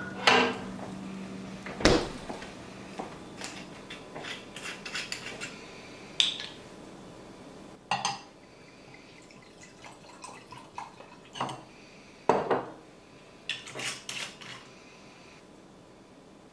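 Wine bottle and wine glass clinking and knocking against a kitchen countertop: a scattering of separate sharp clinks and knocks, some loud, some light.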